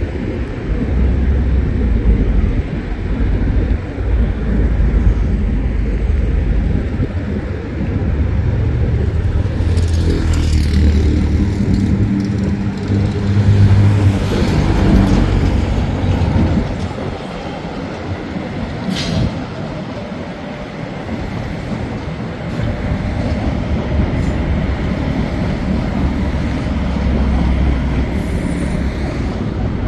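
Electric commuter trains running past on the tracks: a continuous low rumble of wheels and motors. A humming tone rises out of it for several seconds around the middle, and there is a short sharp click a little later.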